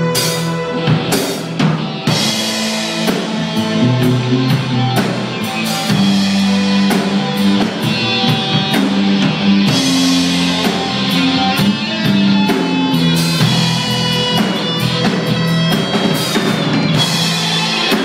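Live rock band playing: a drum kit with bass drum and cymbal strikes over guitar and held low notes.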